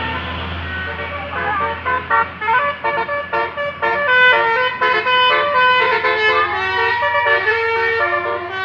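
Manually played basuri, a multi-tone telolet bus horn, sounding a held chord that breaks after about a second into a melody of short horn notes, over a steady low drone.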